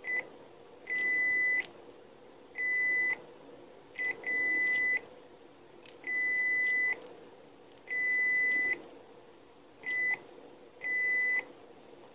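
Uni-T UT71C multimeter's continuity buzzer sounding a high steady beep each time the test leads touch, about nine times. Most beeps last about half a second to a second, and three are only short blips. Each beep marks the meter detecting continuity between the leads.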